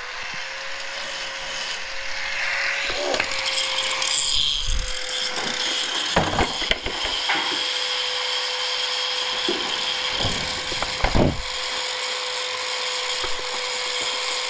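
Spilled gasoline burning on a concrete garage floor, with a steady motor hum and several sharp knocks and clatters, the loudest about six and eleven seconds in.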